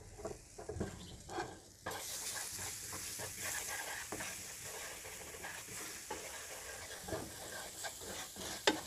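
A wooden spoon stirring crushed garlic, chili flakes and sesame seeds in hot oil in a pan. There are a few light scrapes at first, then a steady sizzle from about two seconds in, and a single sharp knock near the end.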